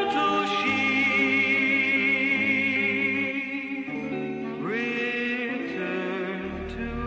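Music: a voice holding long, wavering notes over sustained lower accompaniment, sliding up into a new note about four and a half seconds in.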